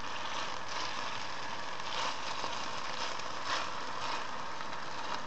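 Hake mince cutlets frying in hot refined vegetable oil in a pan on high heat: a steady sizzle that swells briefly twice.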